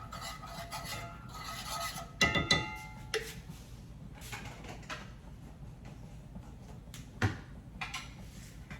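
Metal utensil clinking and tapping against a pan while minced garlic is spooned in, with a quick cluster of ringing taps about two seconds in and one sharp tap about seven seconds in.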